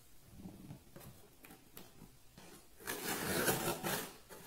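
Scissor blade slitting the packing tape on a cardboard box: a scraping, tearing rasp about three seconds in that lasts just over a second, after softer handling sounds.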